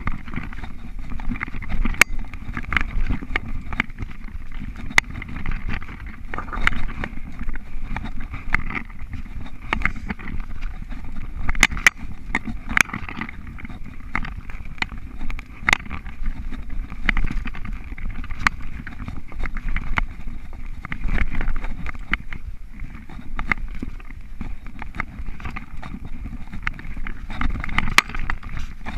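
Mountain bike riding fast over a dirt singletrack: a steady rumble of tyres and rushing air, broken by frequent sharp clacks and rattles as the bike jolts over bumps.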